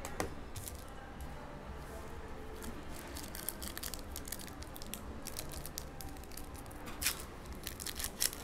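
A Spectra basketball card pack's shiny wrapper crinkling and crackling as it is handled and torn open by hand. The crackles grow denser from about three seconds in, with two louder sharp crackles near the end.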